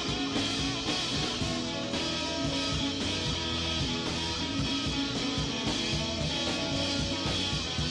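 Instrumental background music led by guitar.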